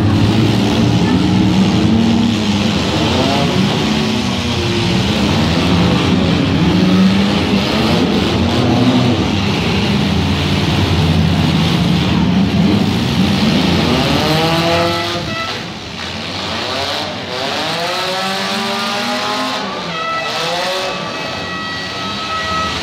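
Demolition derby cars' engines revving hard and dropping back as they ram one another, with several rising surges of revs in the second half. A steady high-pitched tone joins near the end.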